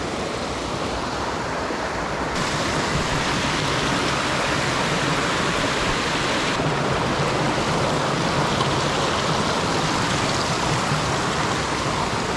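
Waterfall rushing: a steady, even wash of falling water that turns suddenly brighter about two seconds in.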